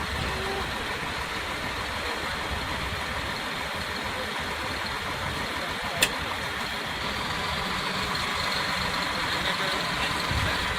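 Diesel engine of heavy earthmoving machinery running steadily, with a single sharp click about six seconds in and the engine sound growing a little louder from about seven seconds.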